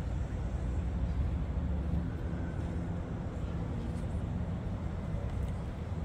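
Steady low rumble of outdoor background noise, with a faint hiss above it and no distinct events.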